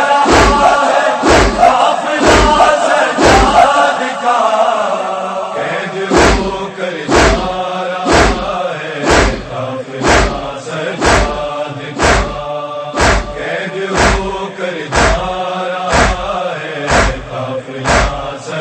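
A group of men chanting a noha, a Shia mourning lament, in unison, with deep thumps keeping the beat about once a second. The thumps drop out briefly a few seconds in, then return.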